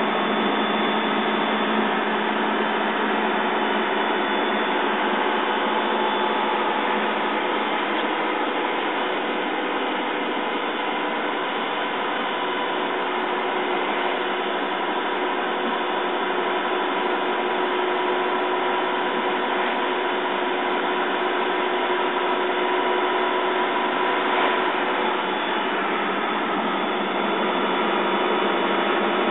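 Mercedes-Benz LP 808 truck's diesel engine running while driving, heard from inside the cab as a steady drone mixed with road noise, with a few faint steady tones in it.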